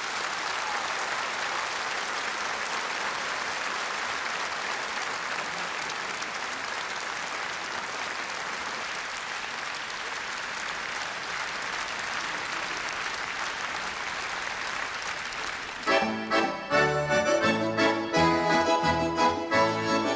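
A large concert audience applauding steadily, then about sixteen seconds in a Russian folk-instrument orchestra strikes up a lively dance tune with accordion and plucked strings such as balalaika and domra.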